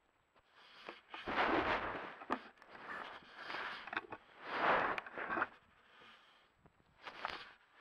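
A bobcat brushing and rubbing against a trail camera close to its microphone: rustling scrapes in four bursts, with a few sharp clicks.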